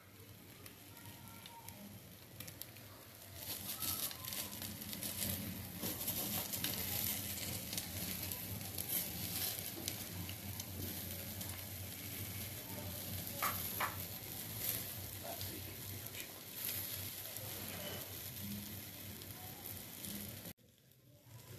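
Chicken tikka skewers sizzling over glowing charcoal as brushed-on oil drips onto the hot coals and flares up. The crackling has many quick pops and grows louder about three seconds in, then cuts off suddenly near the end.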